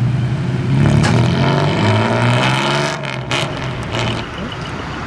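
Motor vehicle engine accelerating on the road, its note climbing in pitch over about two seconds, then dropping away about three seconds in.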